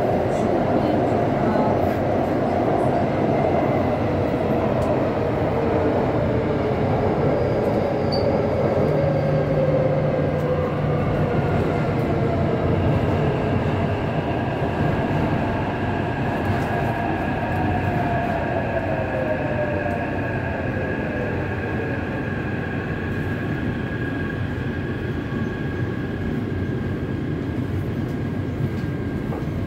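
Taipei Metro C371 train's IGBT-VVVF traction inverter and motors whining over steady wheel-and-rail rumble. The whine falls in pitch in two stages as the train brakes into a station, and the overall noise eases slowly.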